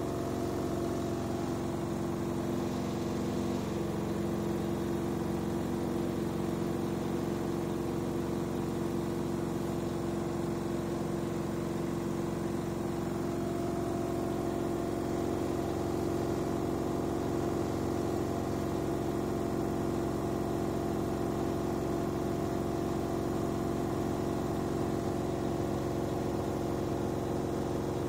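LG direct-drive front-loading washing machine spinning an unbalanced load of dark laundry: the motor and drum run with a steady hum of several tones that shifts slightly a few seconds in and again about halfway through.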